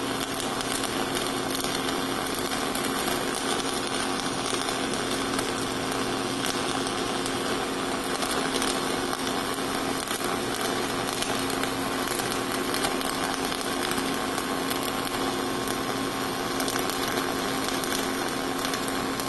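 Flux-cored arc welding the cap pass on a steel pipe joint: the arc crackles and hisses steadily and evenly, with a steady hum under it.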